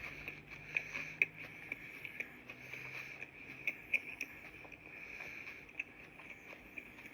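A person chewing a mouthful of turkey sandwich close to the microphone: many soft, irregular wet mouth clicks and smacks.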